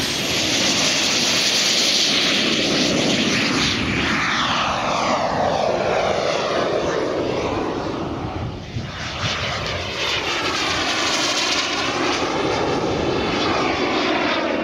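Jet engine of a large radio-controlled English Electric Lightning model running at high power: loud, steady rushing jet noise whose tone sweeps down and back up as the model flies past, with a brief dip about nine seconds in.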